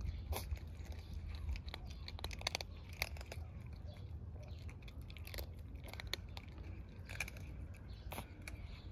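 Tabby cats chewing dry kibble: many short, sharp crunches coming irregularly throughout.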